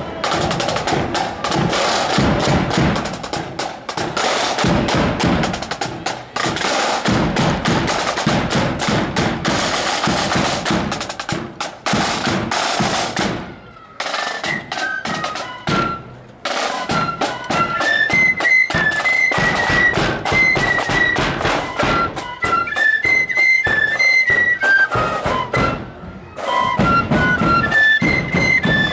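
Marching flute band: snare drums rolling and beating with a bass drum, then, after a short break about halfway through, flutes playing a quick marching melody over the drums.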